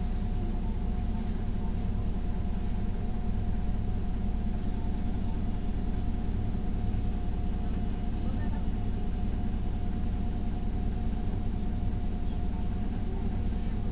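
Neoplan city bus engine running steadily at low revs, heard from inside the passenger cabin, with a steady hum and a faint whine, as the bus creeps along. The bus has a fault that the passenger put down to a loss of power, leaving it slow to answer the accelerator.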